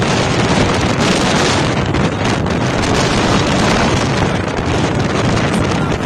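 Blizzard wind blowing hard across the microphone: a loud, steady rushing noise.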